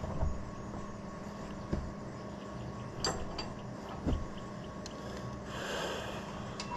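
A few sharp metallic knocks and clicks of hand tools and loose metal parts being handled, four of them a second or so apart. A short scraping rustle follows near the end.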